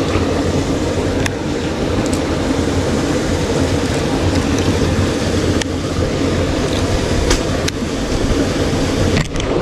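Small boat's engine running steadily, with a few sharp clicks scattered over it.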